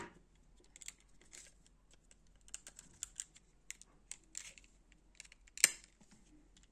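Light plastic clicks and taps from handling the opened Logitech G300s mouse's top shell, with one louder sharp knock about five and a half seconds in.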